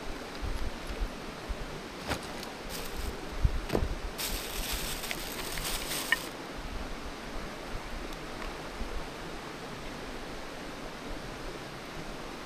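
Campfire burning: a steady rushing noise with a few sharp pops, and a brief high hiss lasting about two seconds near the middle.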